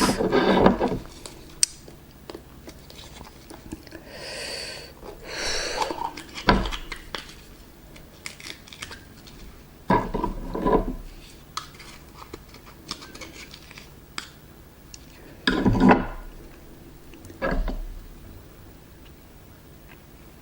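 Raw oysters being eaten off a plate: several short bouts of clattering on the dish, with chewing between them.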